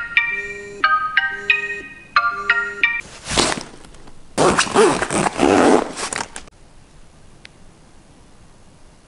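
Smartphone alarm ringing, a short chiming melody repeating about every two-thirds of a second, which stops about two and a half seconds in. Then a few seconds of loud rustling and handling as a shoulder bag is packed.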